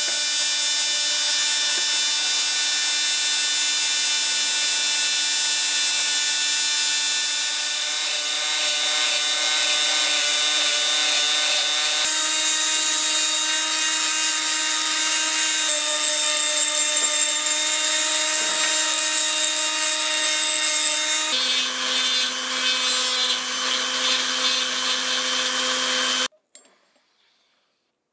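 Handheld rotary tool with a small grinding stone grinding a cast brass sword crossguard: a steady high motor whine over a grinding hiss. The pitch shifts in steps a few times, and the sound cuts off suddenly about two seconds before the end.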